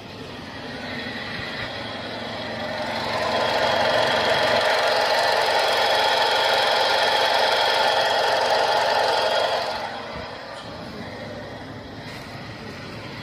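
Car engine running with a steady high-pitched squeal over it. The sound grows louder about three seconds in, holds for several seconds, then drops back near the end.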